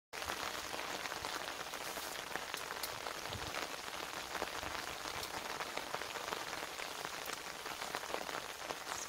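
Heavy rain falling steadily: a dense hiss of many small drop ticks.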